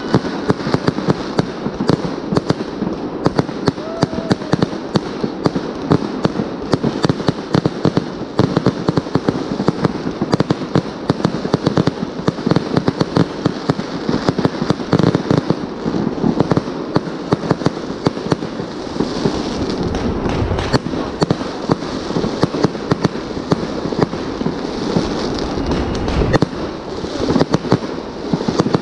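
A multi-shot firework battery firing aerial bursts overhead: a dense, unbroken string of bangs and crackles, many per second.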